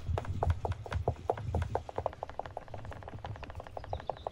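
Quick, uneven crackling and popping, several small pops a second, from the hot oiled metal stove top with a loaf of bread dough baking on it, over a steady low rumble.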